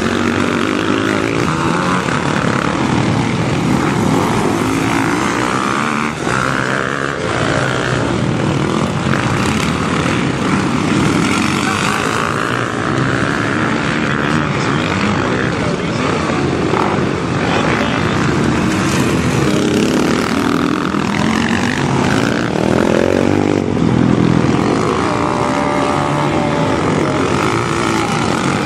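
Motocross motorcycle engines running hard on the track, revving up and down.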